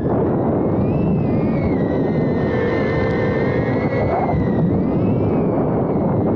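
Small iFlight A85 HD FPV quadcopter in flight, its motors giving a high whine that rises and falls with throttle over heavy wind rumble on the onboard microphone.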